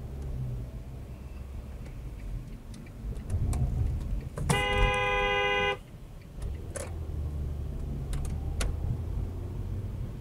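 A car horn sounds once, a steady blare of a little over a second that starts and stops abruptly, over the low rumble of a car driving, heard from inside the cabin.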